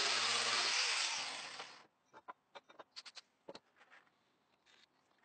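An electric power tool running with a steady hum, fading out just under two seconds in. A few faint, scattered clicks and taps follow.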